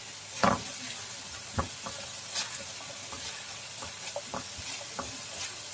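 Chopped onion frying in oil in a nonstick frying pan over a low flame, a steady sizzle, with scattered taps and scrapes of a silicone spatula stirring it against the pan.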